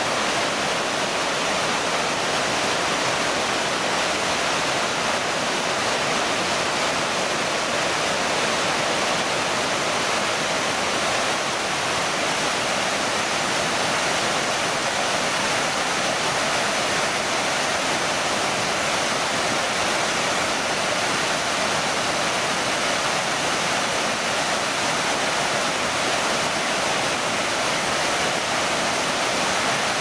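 Fast mountain stream rushing in whitewater over boulders: a steady, loud rush of water with no breaks.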